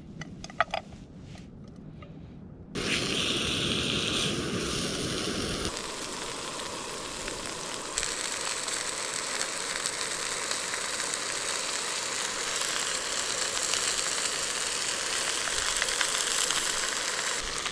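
Steak and vegetables frying in a pan: a loud, steady sizzling hiss with fine crackle, which starts suddenly about three seconds in. Before it come a few crinkles of a small wrapper being torn open by hand.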